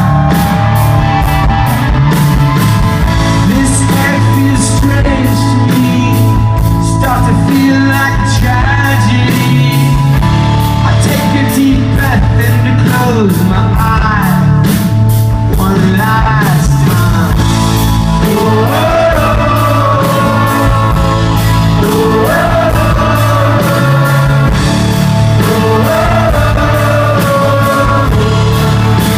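Live rock band playing a song, with a lead vocal over electric guitars, bass and a steady drum beat, loud and dense throughout.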